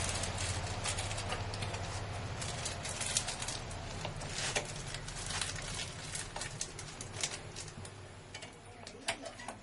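Clicks, taps and plastic rustles of spice packets being handled and closed with a hand-lever bag sealer, over a steady low hum.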